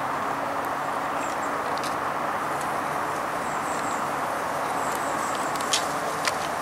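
Steady motor-vehicle noise, an even rumble and hiss with a low hum, with a couple of sharp clicks near the end.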